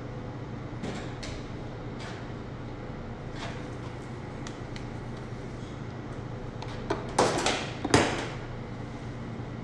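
A steady low hum with a few faint ticks, then, about seven seconds in, two brief scraping clatters as a hand blender is set down on a stainless steel worktop.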